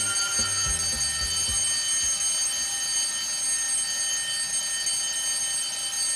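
Alarm clock ringing steadily without a break, to wake a sleeping child.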